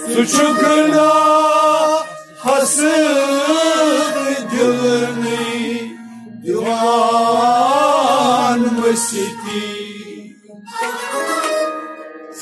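Kashmiri Sufi song: a man sings long, wavering, ornamented phrases over a steady held instrumental accompaniment, with short breaks between phrases.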